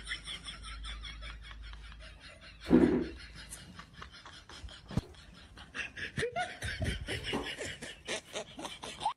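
Laughter, quick chuckling pulses, with one loud thump about three seconds in.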